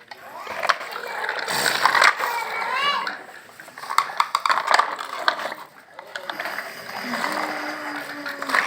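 Children's voices talking and calling out, with scattered small clicks and knocks of handling.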